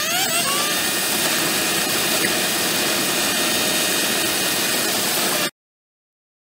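Steady, loud rush of engine noise with a lot of hiss, of the jet-engine kind. It cuts off suddenly about five and a half seconds in.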